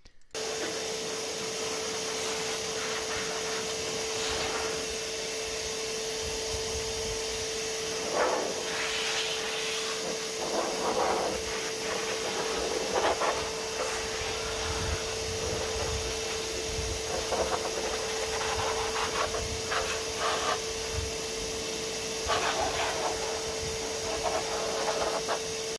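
Titan TTB350VAC 1300 W wet-and-dry vacuum running on its blow function: a steady motor drone with a constant whine, blowing high-speed air to clear leftover water from the engine bay. The rush of air swells in several brief louder gusts as the nozzle moves over the surfaces.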